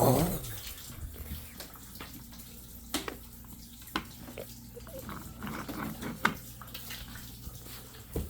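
Water running from a kitchen tap over a low steady hum, with a few sharp clinks and knocks scattered through it.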